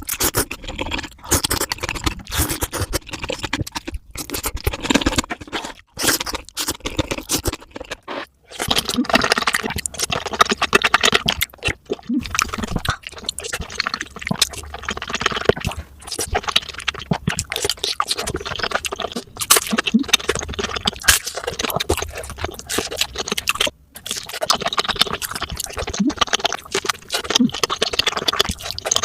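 Close-miked eating of crispy food, played back at four times speed: rapid, dense crunching and chewing that run together into a near-continuous crackle, with a few brief pauses.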